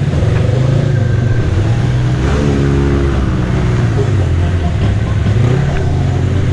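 Side-by-side UTV engines running under load and revving, the engine pitch rising and falling as the machines drive through a muddy creek bed.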